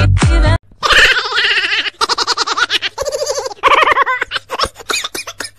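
Dance music with a heavy beat cuts off suddenly about half a second in. A person then giggles and laughs in quick, high-pitched bursts.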